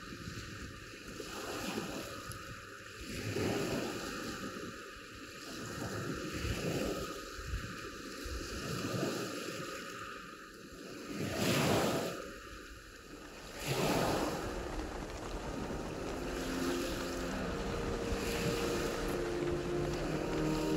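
Sea waves washing onto the shore, each one swelling and ebbing every couple of seconds, with wind on the microphone. Soft music fades in near the end.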